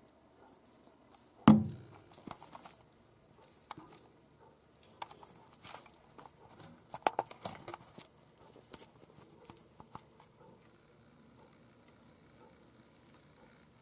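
A sharp knock about one and a half seconds in, then scattered light rustles and clicks, busiest around the middle. Faint, high cricket-like chirps repeat throughout.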